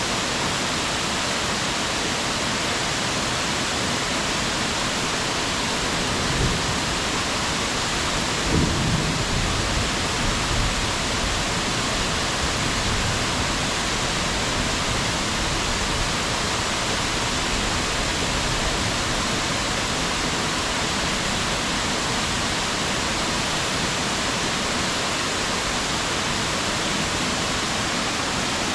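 Steady rushing water, a dense even hiss, with a few brief low thumps about a third of the way through.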